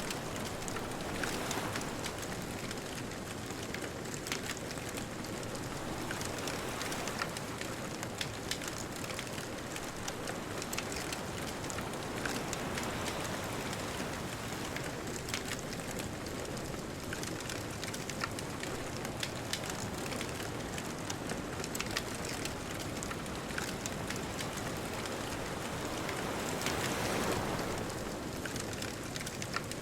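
Wood bonfire crackling with frequent small sharp pops over a steady wash of ocean surf, which swells a little before the end as a wave comes in.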